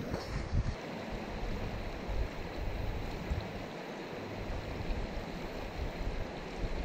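Shallow, stony creek running over a pebble bed: a steady rush and ripple of water.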